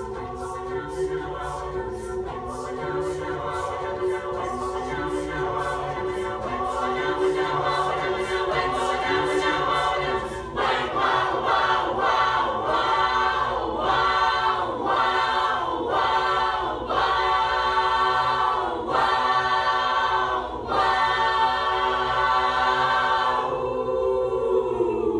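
Mixed-voice chamber choir singing a cappella: sustained chords under rapid, evenly repeated consonant sounds, then about ten seconds in a louder full-voiced section sung in short repeated chordal pulses, ending on a held chord that slides downward in pitch.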